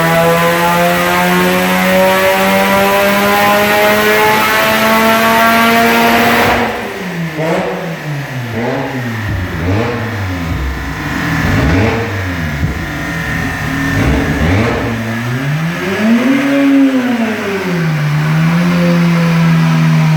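Mazda FC3S RX-7's twin-rotor 13B rotary engine under load on a dyno, pulling up steadily in pitch for about six and a half seconds before the throttle is suddenly closed. The revs fall, it is blipped several times in quick succession, revved once more higher, then settles to a steady idle near the end.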